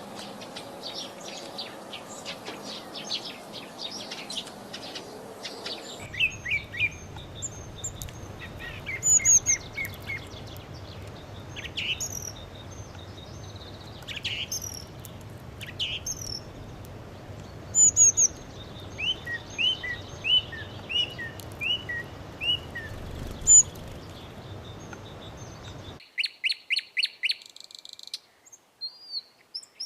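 House sparrows chirping: many short, repeated chirps, loosely overlapping, with a quick run of evenly spaced chirps near the end. The background hiss changes abruptly twice where recordings are joined.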